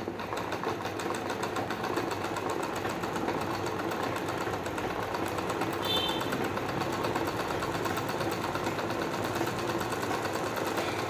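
Pico (picot edging) sewing machine running steadily, with a rapid, even ticking of its stitching mechanism.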